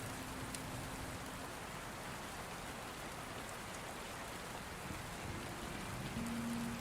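Steady rain falling, an even hiss of rainfall with no break, with a brief faint low hum near the end.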